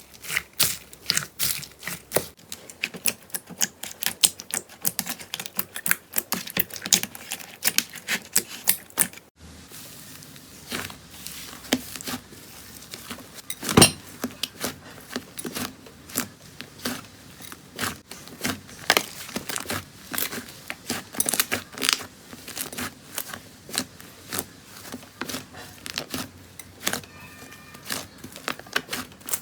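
Slime being squeezed and worked by hand, giving off dense, irregular crackling clicks and pops, with a short break about 9 seconds in.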